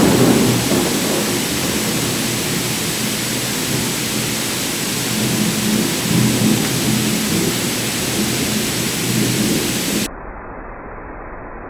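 Thunder rumbling and rolling under steady rain hiss. Near the end it cuts off abruptly to a quieter, muffled rumble.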